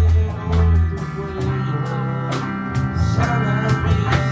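A live band with drum kit and electric guitars playing a Spanish-language worship song. Deep, held low notes sit under guitar lines, with steady drum and cymbal strokes.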